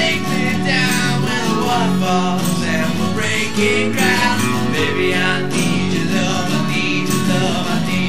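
Music with guitar, playing steadily.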